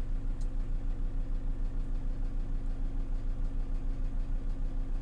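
Vehicle engine running steadily, heard from inside the car, with an even low throb about eight times a second.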